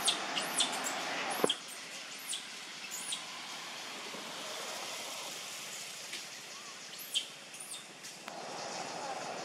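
High-pitched chirping calls, each rising and falling quickly, come thick in the first second or so, then a few scattered ones and a pair near the end, over a steady outdoor hiss. A single sharp click about a second and a half in.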